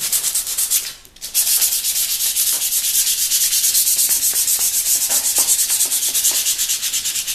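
Rapid, even back-and-forth scrubbing of an abrasive against a rusted metal hand plane to scour the rust off, a dry hissing rasp. The strokes break off briefly about a second in, then carry on.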